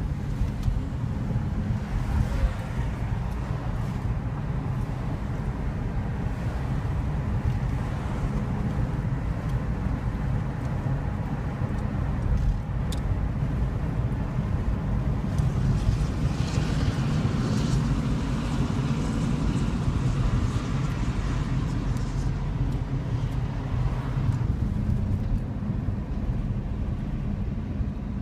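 Steady low rumble of a moving vehicle heard from inside it, with a brighter, hissing layer joining in for several seconds about two-thirds of the way through.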